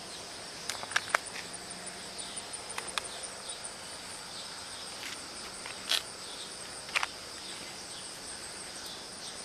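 Steady outdoor chorus of insects chirring at a high pitch, with a few sharp clicks and knocks close to the microphone, the loudest about 1 s, 6 s and 7 s in.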